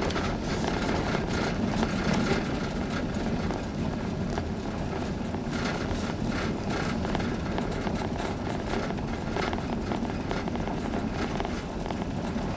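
Vehicle cabin noise as it rolls slowly down a paved ramp: a steady low rumble of engine and tyres, with scattered light clicks and rattles.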